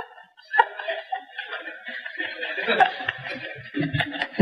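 Audience laughing and chuckling at a joke, a loose mix of many people's laughter.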